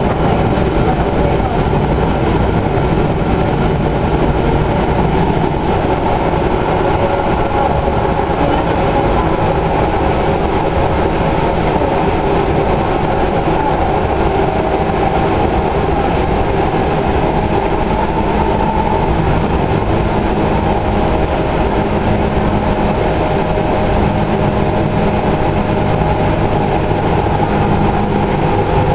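A 2011 Kinki Sharyo light rail car running at speed, heard from inside: a steady rumble of wheels on rail and running gear, with a faint steady whine over it.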